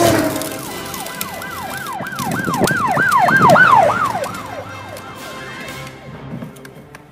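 Emergency-vehicle siren yelping: quick rising-and-falling sweeps, about three a second, that swell to a peak partway through and then fade away.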